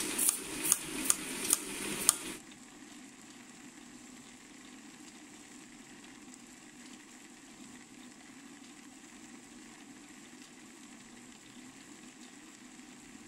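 Coated rice puffs tumbling in a turning star-roller drum, rattling with a quick run of sharp clicks. The rattle cuts off suddenly about two seconds in, leaving only a faint steady low hum.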